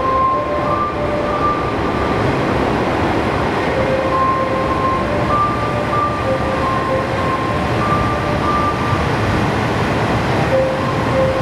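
Red KiHa 40-series diesel railcar running at the platform, its diesel engine giving a steady rumble as it moves. Over it a clear electronic tone switches between two notes every half second or so.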